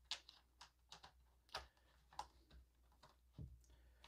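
Faint, irregular small clicks and taps of plastic toy-playset pieces, the blue side rails and their connectors, being handled and pressed into place.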